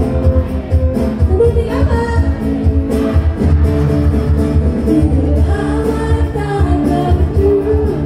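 A live group performs a song through a PA sound system, with singing over a steady low beat.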